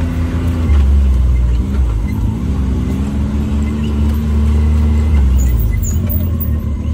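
Engine of a Can-Am Maverick X3 XRS Turbo RR side-by-side, a turbocharged three-cylinder, running steadily under way. Its pitch dips and rises about two seconds in, then holds steady.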